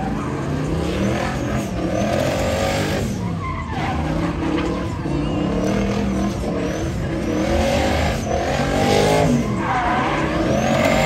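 Drift car's engine revving hard, the revs climbing and dropping over and over as the throttle is worked through a slide, with tyres skidding.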